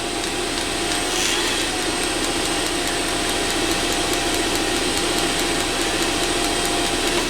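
Eberspacher D1L diesel heater running on the bench: its combustion-air blower makes a steady whirring hum while its fuel dosing pump ticks at a regular rate. Fuel from the pump is partly diverted through a bypass line to cut the over-fuelling that has been making the heater smoke.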